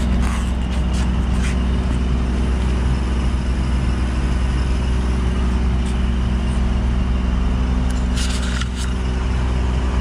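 An engine running steadily at an even idle, a constant low hum. A few light clicks sound about a second in and again near the end.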